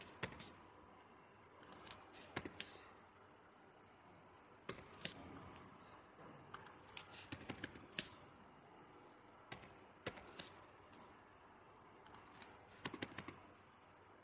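Faint computer keyboard keystrokes and mouse clicks in short scattered clusters over a low hiss, as values are typed into a software dialog.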